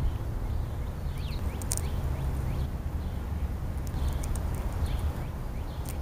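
Outdoor ambience: a steady low rumble, with small birds chirping a few times in the background and a few sharp clicks close by.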